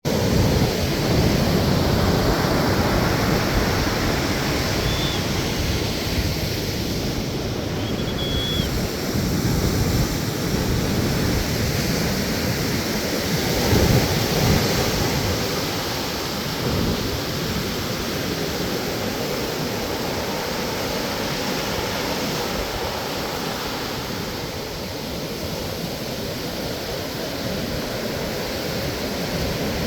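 Ocean surf: waves breaking and washing ashore in a continuous rushing noise, swelling loudest about halfway through.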